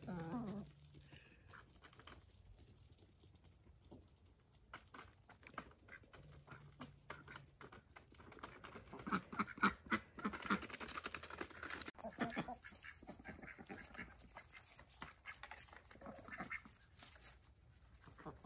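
Ducks and chickens feeding from a plastic trough: soft, rapid clicking of bills pecking and dabbling in the feed, coming in clusters that are busiest about halfway through. A short falling bird call comes right at the start.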